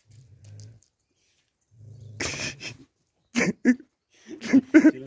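Two dogs in a dominance scuffle: low growling, then a rough snarl about two seconds in and several short barks in the last two seconds.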